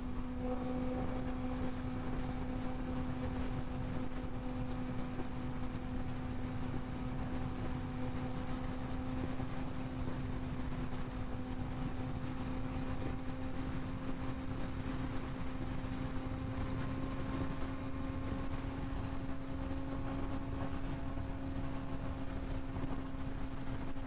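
Suzuki GSX-R sportbike engine running at a steady highway cruise, one held tone whose pitch creeps slightly higher toward the end, under a low rush of wind and road noise.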